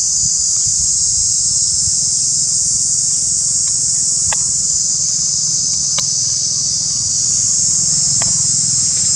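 Steady, loud, high-pitched insect chorus, with a low rumble underneath and a few faint clicks about four, six and eight seconds in.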